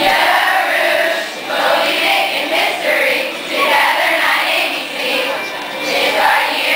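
A large group of girls and children singing together, a loud camp song that starts suddenly and rises and falls in waves.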